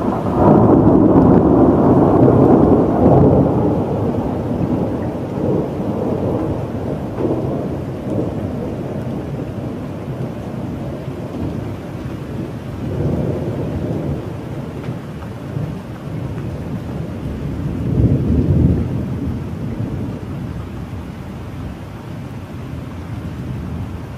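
A loud thunderclap breaks just after the start and rumbles away over several seconds, followed by a weaker roll of thunder around the middle and a stronger one about three quarters through, over steady rain.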